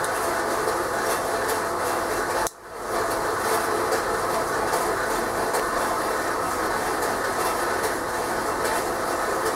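Steady background noise of an old band headstock being cut up for scrap, a continuous harsh metal-cutting sound. It drops away suddenly about two and a half seconds in, then builds back within half a second.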